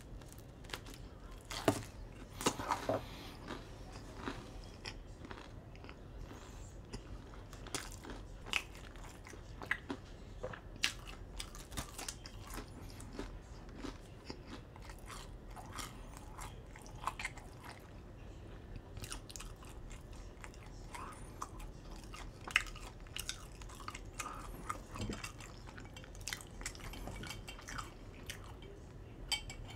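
A person biting into and chewing pizza close to the microphone: crisp crunchy bites and many small wet mouth clicks, the loudest bites in the first few seconds.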